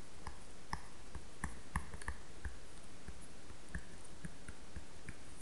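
Tablet pen tapping and sliding on the screen during handwriting: scattered light clicks at uneven intervals over a steady hiss.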